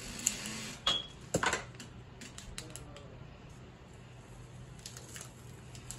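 Scissors snipping open a small foil packet: a few light, sharp clicks in the first second and a half, then fainter scattered clicks and crinkles as the packet is handled.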